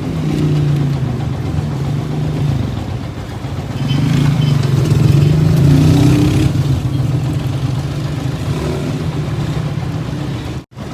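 Motorcycle engine of a passenger tricycle running steadily, louder for a couple of seconds midway as it is revved.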